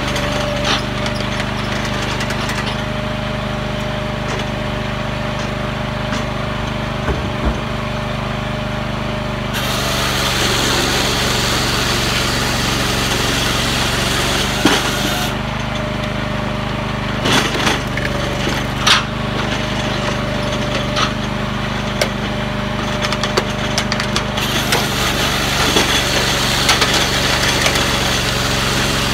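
Firewood processor running on its 14 hp Kohler engine, a steady engine hum throughout. Over it come two spells of louder rushing noise and scattered sharp cracks and knocks of logs being cut and split.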